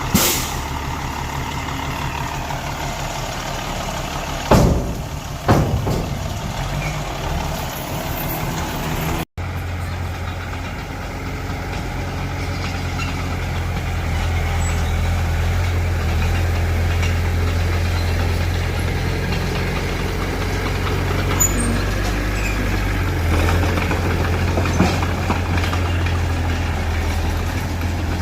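Heavy diesel earthmoving machinery running steadily, with two sharp metallic bangs about a second apart early on. There is an abrupt cut, after which a deeper, steady engine drone carries on.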